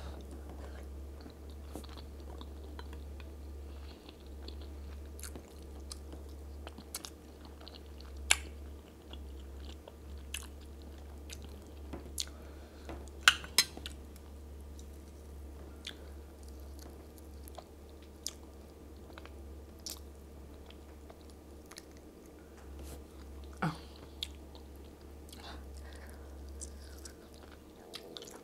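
Close-up chewing and mouth sounds of a person eating chicken and plantain in pepper soup, with scattered sharp clicks. A steady low hum runs underneath.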